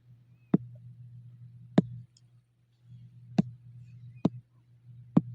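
Five sharp single clicks at uneven gaps of about a second, over a low steady hum.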